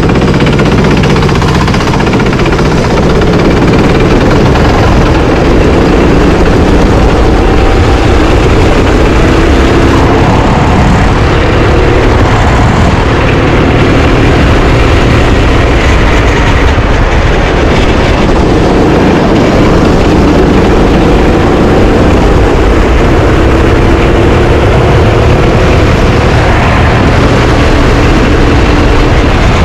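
Rental kart engine running hard and loud at racing speed, its pitch repeatedly climbing as it accelerates and dropping back as it slows.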